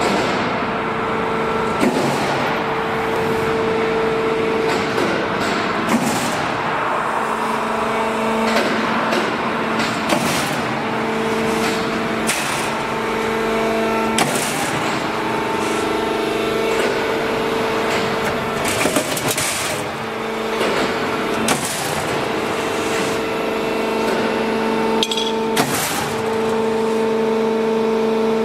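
Steel C-frame roll forming machine running with a steady drive hum, broken every two to four seconds by sharp metal clanks from the punching and cutting dies striking the steel strip.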